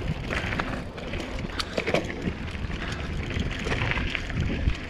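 Mountain bike rolling over a dirt singletrack: a steady low rumble from the tyres and ground, with scattered clicks and rattles from the bike.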